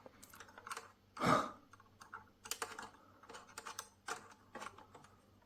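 Small irregular clicks and scrapes of a metal tool and a coin-cell BIOS battery working against the battery holder's latch as the cell is pushed into place. A short, louder noise comes about a second in.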